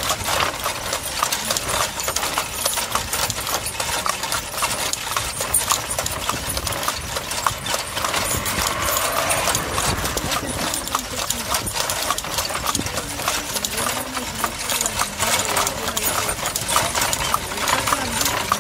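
Horse's hooves clip-clopping steadily on an asphalt road as it pulls a cart.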